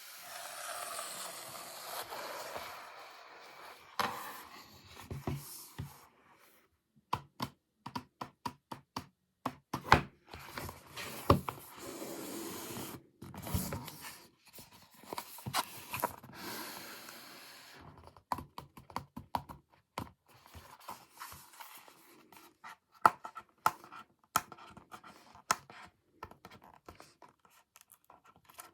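Close-miked hands handling and unboxing packaging. There are stretches of rustling and rubbing for the first several seconds, mixed with sharp clicks through the middle. Many irregular sharp clicks and taps fill the second half.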